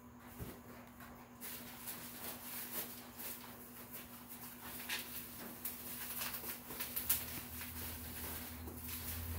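Rustling, scraping and small irregular clicks of hands handling plastic prop parts, over a steady low hum.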